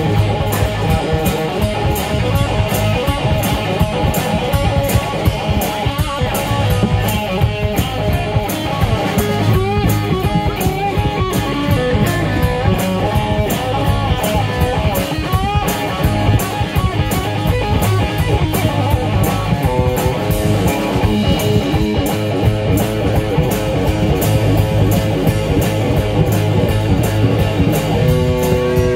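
Rock music with a red electric bass being played and a steady drum beat, the low bass notes prominent.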